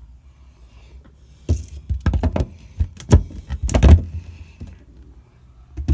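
Lid of the boat's top-loading cold plate refrigerator box being lifted open by hand: a run of knocks and clatters from about one and a half to four seconds in, and one more knock near the end.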